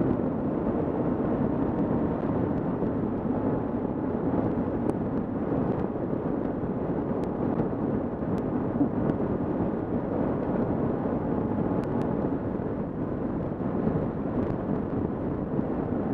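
Kawasaki KLR650's single-cylinder engine running steadily at road speed, mixed with wind rushing over the helmet-mounted camera's microphone.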